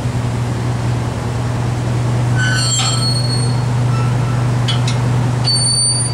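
A boat's engine drones steadily at a low pitch. High metallic squeaks come about two and a half seconds in and again near the end, with a couple of clicks between, from the metal stairway railings and gate being handled.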